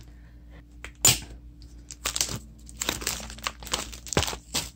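Plastic page protectors and sticker sheets being handled and shuffled, crinkling and rustling. There is one sharp rustle about a second in, then a busy run of crinkles from about two seconds on.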